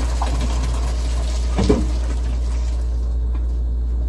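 Hot pasta water pouring from a pot into a strainer in the sink, a rushing hiss that stops about three seconds in, with a single knock partway through. A steady low hum runs underneath.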